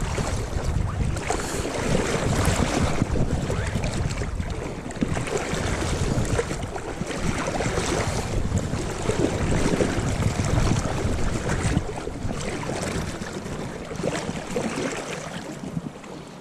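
Wind buffeting a camera's built-in microphone in a gusting low rumble, over the steady noise of a river running high.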